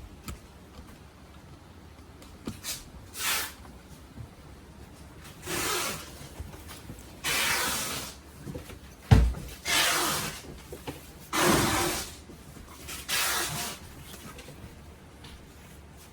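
Down jacket's shell fabric rustling as it is handled, in about six separate swishes, with one dull thump about halfway through.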